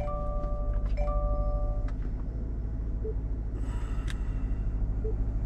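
A car's electronic warning chime dinging about once a second, stopping about two seconds in, over the low steady rumble of an idling engine; a few clicks and a rustle follow near four seconds.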